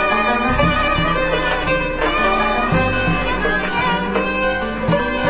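Background instrumental music: a melody of long held notes over a steady low drone.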